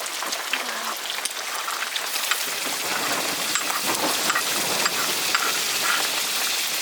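Food frying in hot oil in a pan: a steady sizzling hiss with small crackles that grows louder about two seconds in.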